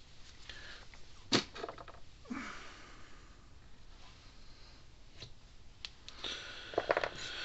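Small handling sounds on a workbench: one sharp click a little over a second in, a short scrape, a couple of light clicks, then rustling and knocks near the end as small plastic bottles and parts are handled.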